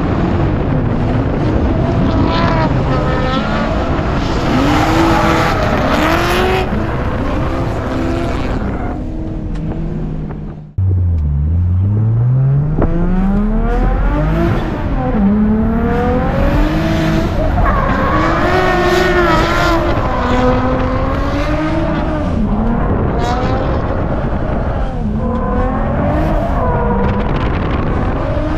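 BMW E90 335i's single-turbo N54 inline-six revving hard up and down while the car drifts, with tyres squealing and skidding. About ten seconds in, the sound breaks off briefly and resumes with the engine climbing steadily through the revs.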